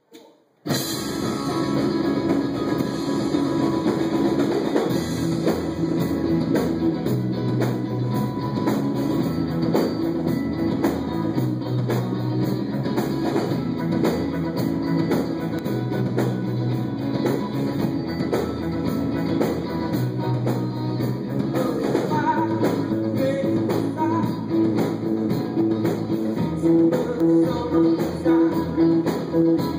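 Live noise-pop band with electric guitars and drum kit kicking into a song about half a second in after a brief hush, then playing on steadily at full volume.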